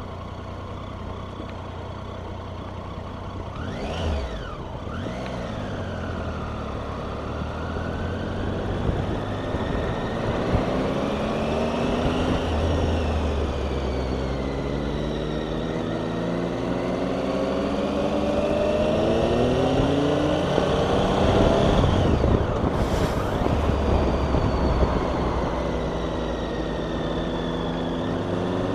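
Motorcycle engine and wind rush as heard from a rider's helmet camera; about halfway through, the engine note climbs steadily as the bike accelerates, then eases near the end.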